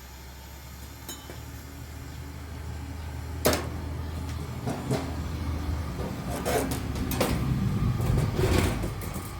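A steady low rumble that slowly grows louder, with a handful of sharp knocks and clatters starting about three and a half seconds in.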